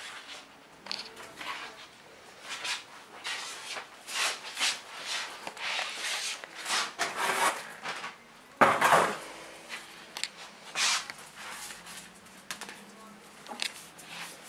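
Scrabbling and clicking of a puppy's and a ferret's claws on a tiled floor as they play, in short irregular spurts, with one louder knock about nine seconds in.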